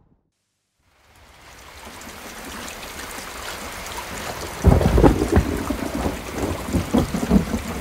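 Rain falling, fading in from silence after about a second and growing steadily, then a loud thunderclap breaks about five seconds in and rumbles on with crackling.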